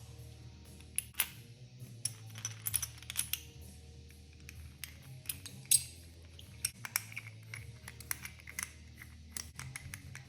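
Small metal parts clicking and clinking as they are handled and set down, a couple of dozen irregular sharp ticks, the loudest about two-thirds of the way in, over steady background music.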